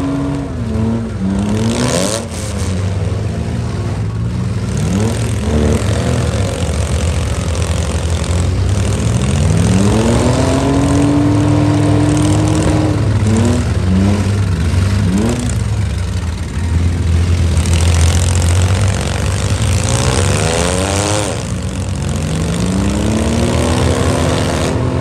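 Engines of stock minivans, trucks and SUVs in a demolition derby revving hard over a steady low drone, pitch climbing, holding and dropping several times as the vehicles accelerate. There is a loud bang about two seconds in.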